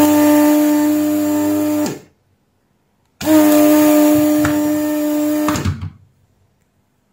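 Vacuum pump of an electric desoldering gun running twice, each time for about two and a half seconds, a steady pitched motor hum with hiss that drops in pitch as it switches off, sucking molten solder from the pads of a failed capacitor being removed.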